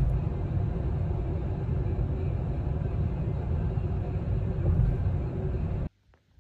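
Car road noise heard from inside the cabin while driving: a steady low rumble of tyres and engine that cuts off suddenly near the end.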